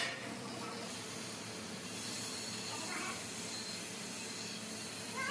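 Oxy-fuel cutting torch on a cutting machine hissing steadily as its gas jet burns through steel plate, with a sharp click right at the start.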